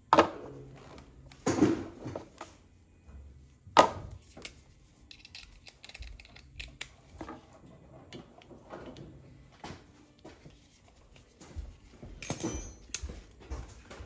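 Metal clinks, clicks and knocks of hand tools and parts on a Carlin oil burner's nozzle line and electrode assembly while the nozzle is being changed with a nozzle wrench. The loudest are sharp knocks near the start and about four seconds in, with lighter clatter between.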